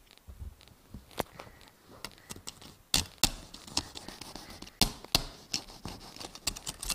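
Irregular sharp knocks and clacks of a plastic Nokia flip phone being banged and handled in an attempt to break it, several hard hits among lighter taps.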